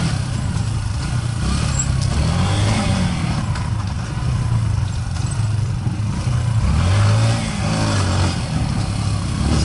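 Trail motorcycle's engine running while riding over a dirt trail, its pitch rising and falling with the throttle, with a steady rushing noise over it.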